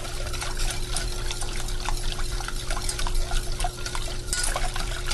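Wire whisk stirring a thin, creamy soup base in a stainless steel saucepan as it starts to thicken: a steady wet swishing with many small clicks of the wires against the pan.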